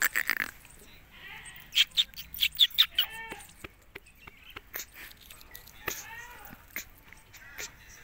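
Ring-necked parakeet eating a pea pod: a harsh burst at the start, then a quick run of sharp, loud cracking clicks about two to three seconds in as the beak bites into the pod, and a few short rising-and-falling chirping calls.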